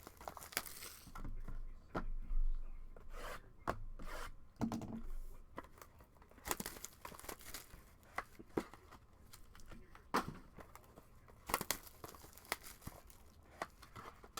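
Wrapping on a sealed trading card box being torn open and crinkled by hand: irregular short rips and crackles throughout.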